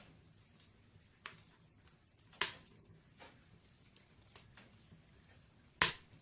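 Wood fire burning in a fireplace: scattered small crackles with two loud, sharp pops, about two and a half seconds in and near the end.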